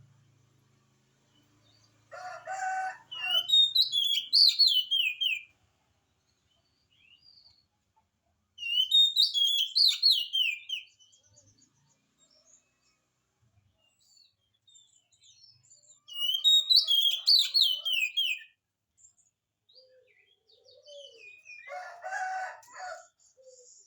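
Oriental magpie-robin (kacer) singing in full song: three phrases of quick, high whistled notes, each about two seconds long, with pauses between. A short, harsher call sounds about two seconds in and again near the end.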